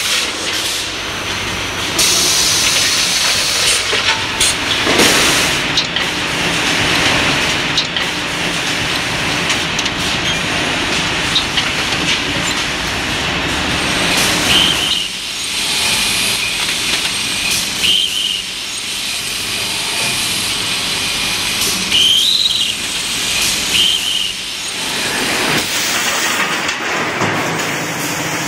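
Machines making steel rebar couplers running together, a steady noisy clatter and hiss with scattered clicks. Several short high squeals come through in the second half.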